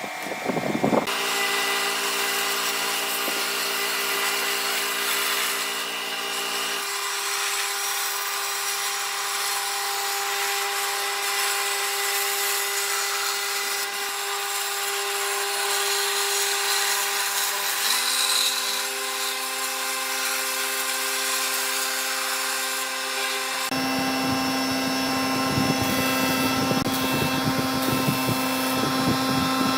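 Electric power tools running steadily on wood, with the machine's pitch changing abruptly a few times and a rougher, noisier tool sound near the end.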